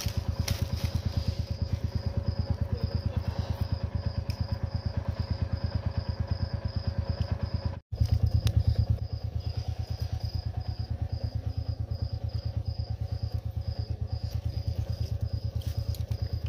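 An engine running steadily nearby with a fast, even thudding beat, its low pulses the loudest thing heard; a faint high-pitched tone pulses along above it a few times a second. The sound cuts out for a split second about eight seconds in.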